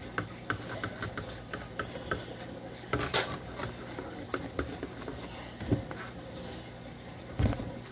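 Scissors snipping through cloth in a series of short, irregular cuts, with a louder knock about three seconds in.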